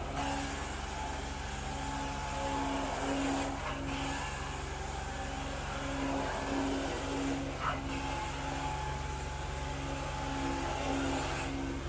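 Carpet-cleaning hot-water extraction wand drawing water and air out of the carpet under strong suction, over the steady hum of the extraction machine. The suction hiss drops out briefly three times, about four seconds apart, as the wand is stroked across the carpet.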